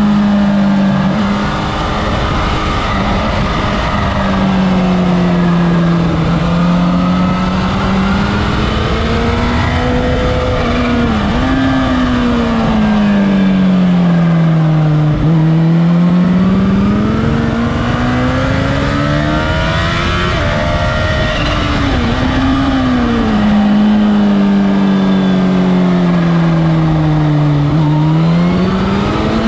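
Sport motorcycle engine heard from on board at track speed, its note rising under acceleration and falling away over several seconds at a time, with brief dips in pitch at gear changes, over steady wind rush.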